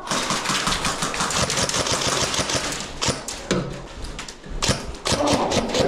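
Airsoft guns firing: a rapid burst of fast clicking shots for about three seconds, then scattered single shots and short bursts.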